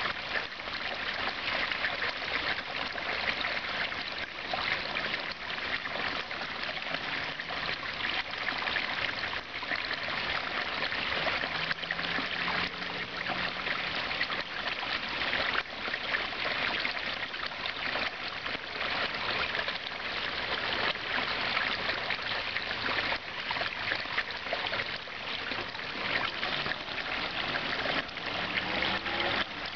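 Water pouring from a pipe outlet into a pond, running steadily with bubbling where the flow enters the water.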